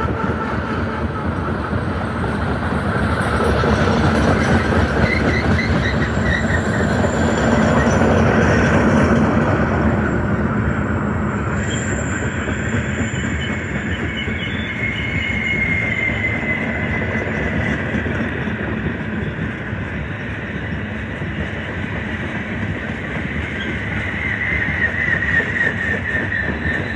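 Freight train of tarp-covered open-top railcars rolling past at close range: a steady rumble and rattle of steel wheels on rail and joints, with high-pitched wheel squeals that come and go.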